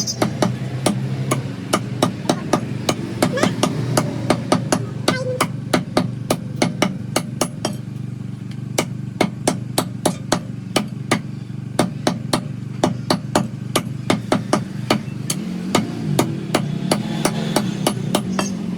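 A cleaver chopping chicken into pieces: a long run of sharp, rapid blows, about three to four a second, with a short lull about eight seconds in.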